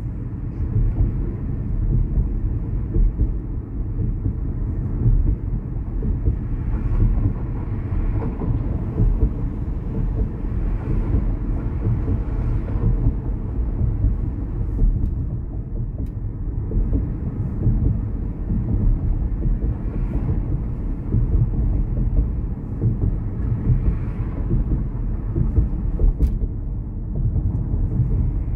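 Steady low road and tyre rumble heard inside the cabin of a moving car, with a few brief faint swells.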